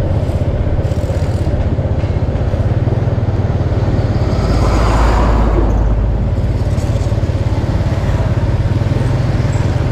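Steady low drone of a motorbike riding along a road, engine and wind together. A heavy truck passes close about five seconds in, its noise swelling and then fading.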